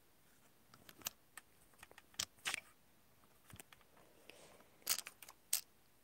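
Handling noise from the recording device as it is gripped and moved: a scattered string of light clicks and taps. The louder ones come about a second in, around two and a half seconds in, and near the end.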